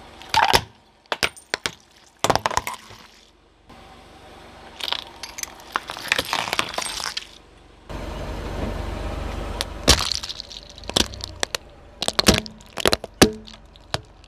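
Brittle objects cracking and crunching under a car tyre: a string of sharp snaps and crackles, with a longer crunch about five seconds in and a low rumble beneath the cracks in the second half.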